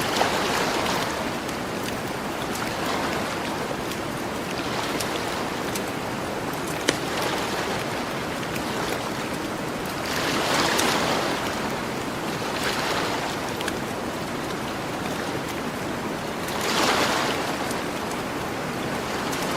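Gentle ocean waves washing onto a beach, each wave swelling and fading every few seconds over a steady wash of surf. A campfire crackles with scattered small snaps and one sharp pop about seven seconds in.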